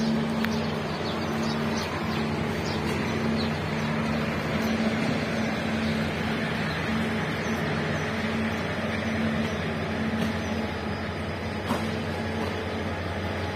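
A train running, with a steady low diesel hum and the even rushing noise of wheels on the rails.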